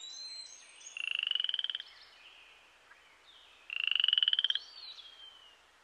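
Cricket frog calling twice, each call a rapid pulsed trill lasting about a second.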